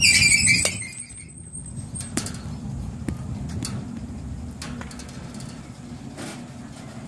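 Batting-cage pitching machine giving a short high squeal as it throws a pitch, followed about half a second later by the sharp crack of a softball bat meeting the ball.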